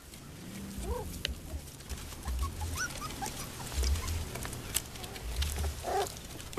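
Four-week-old Corgi–Sheltie mix puppies whimpering, with short high squeaks several times over a few seconds.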